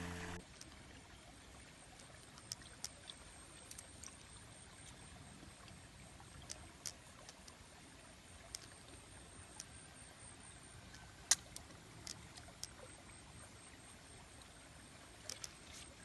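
Faint trickle of a shallow, rocky stream, with scattered sharp clicks and ticks over it, the loudest a little after halfway.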